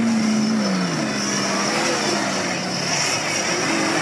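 Off-road 4x4 vehicle's engine running under load, its pitch rising at the start and dropping about a second in, then holding steady.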